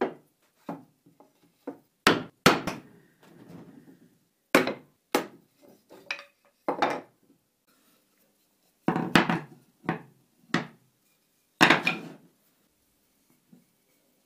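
Wood-on-wood knocks and clunks: about a dozen sharp, irregular hits, some in quick pairs, as wooden bars and blocks are set down and knocked on a wooden workbench. There is a short softer scrape about three seconds in.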